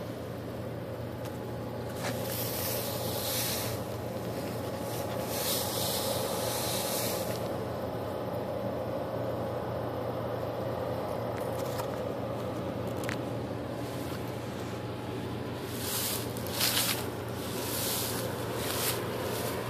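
Steady low mechanical hum, with several bursts of rustling over it, the loudest about two-thirds of the way through.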